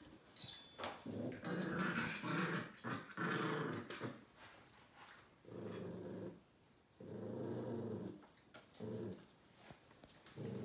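A pet growling: about six low, drawn-out growls with short gaps between them.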